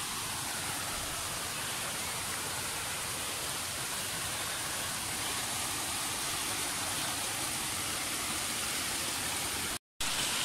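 Mountain stream running over rocks: a steady, even rush of water, which drops out for a moment near the end.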